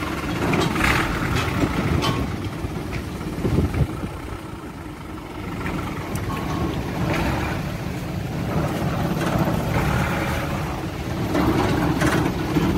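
Mitsubishi PS120 light truck's diesel engine running steady and low as the truck pulls slowly forward, dipping a little about four seconds in and then picking up again.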